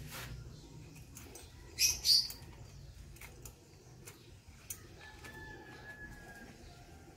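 Two short, high chirps a fraction of a second apart, like a small bird calling, over faint clicks and taps of metal parts being handled.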